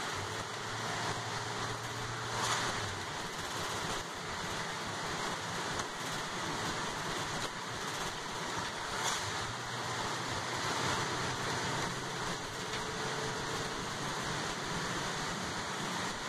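Inside a moving bus on a rain-wet road: a steady hiss of tyres and spray with the engine's low hum underneath. There are two brief louder swells, about two and a half and nine seconds in.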